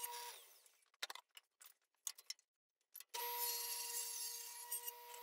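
Table saw running through a bevel groove cut in hardwood, a steady whine with a high hiss. It dies away about half a second in, and after a couple of seconds of near silence with a few light clicks it starts abruptly and runs steadily again.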